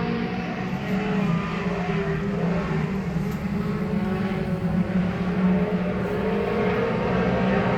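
Several sport compact race cars running at speed around a dirt oval, their engine notes overlapping and wavering steadily as the pack circulates.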